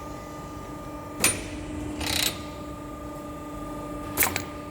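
Euromotech E5012 CNC aluminium corner crimping machine running in calibration mode: a steady hum, a sharp mechanical click about a second in and another near the end, and a short hiss of air about two seconds in.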